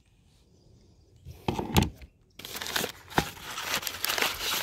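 A few knocks of objects being handled, then wrapping crinkling and rustling steadily from about halfway through as an item is unwrapped.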